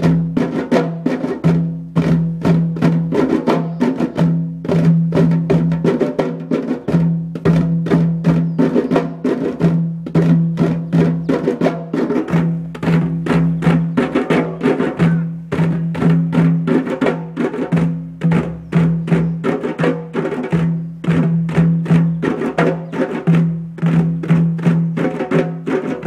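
A group of djembe hand drums played together in a fast, steady rhythm, with a deep drum tone sounding again and again through the pattern.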